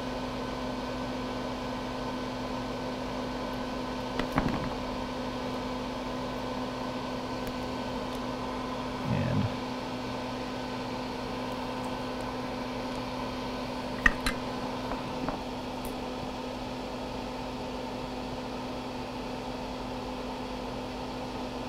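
Steady machine hum, like a running fan, with an even low tone, broken by a few small clicks and taps; the sharpest click comes about 14 seconds in.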